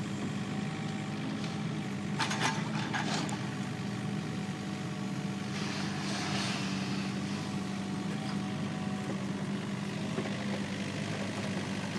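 Excavator's diesel engine running steadily while it digs, with a few short clanks about two to three seconds in and a brief scraping hiss around the middle.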